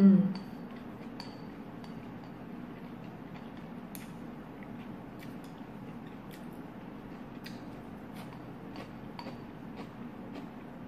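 Chopsticks clicking against a ceramic bowl while food is picked out of it: scattered light clicks over a steady low hum.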